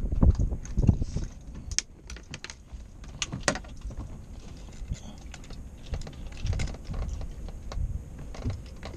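Scattered light clicks, taps and rustles of someone handling small items in the cockpit, with wind rumbling on the microphone during the first second or so.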